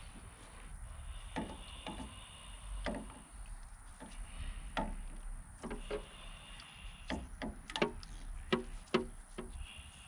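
Gloved hands handling thin wires at a pickup's tail-light housing: irregular light clicks and taps of wire and plastic, more of them and sharper in the last three seconds.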